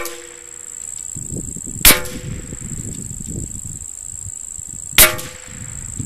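.22 rimfire rifle shots hitting a metal can target. Each is a sharp crack followed by a short metallic ring from the can. There is one right at the start, then two more about three seconds apart.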